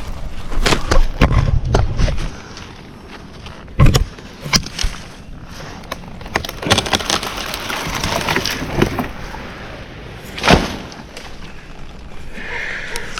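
Rustling and crackling with a run of sharp knocks and snaps, two of them loud, with no saw running: branches being handled or broken.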